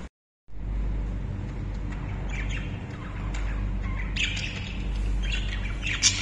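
Caged budgerigars chattering, with clusters of short high chirps and squawks that grow busier toward the end, over a steady low rumble. The sound drops out for about half a second at the very start.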